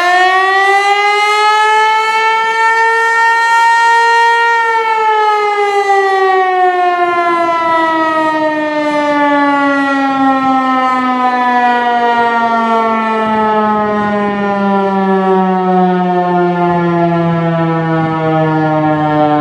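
Federal Signal Eclipse 8 electronic outdoor warning siren sounding a loud, steady tone that rises slightly, then from about four and a half seconds in glides slowly and steadily down in pitch as it winds down.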